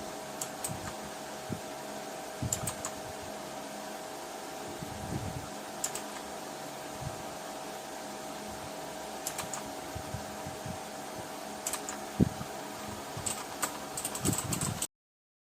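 Keys being pressed on a Rapoo V500 Pro mechanical keyboard with blue switches: scattered single clicks, then a quicker run of keystrokes near the end, over a steady background hum.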